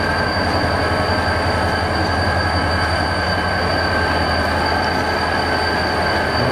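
EMD GT26MC diesel-electric locomotive (South African Class 34-600) hauling coaches at low speed, its diesel engine running with a steady deep rumble. A steady high whine sits above it throughout.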